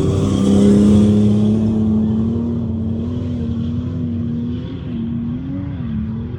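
Off-road vehicle engine running at a fairly steady speed, its pitch wavering slightly, loudest about a second in and then easing off gradually.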